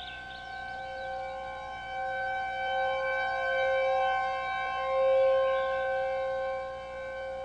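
Siren holding one steady, unwavering tone, swelling louder through the middle and easing off near the end.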